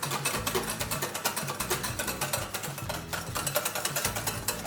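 Background music with a quick steady beat over a stepping bass line.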